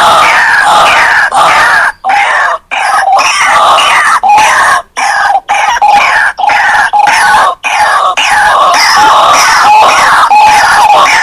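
White-breasted waterhen (ruak-ruak) calling loudly: a rapid string of repeated calls, broken by several brief pauses.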